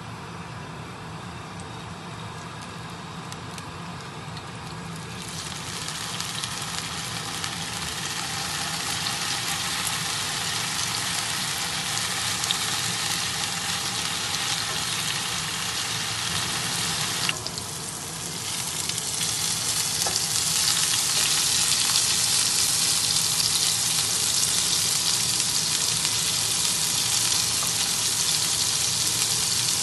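Cubes of firm tofu sizzling in hot oil in a non-stick frying pan. The sizzle starts about five seconds in as the tofu goes in, drops briefly about two-thirds of the way through, then comes back louder and steady over a low steady hum.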